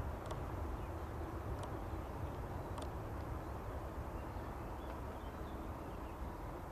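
Low, steady rumble of a distant Airbus A320-214's CFM56 jet engines on approach, with a few short, high bird chirps over it.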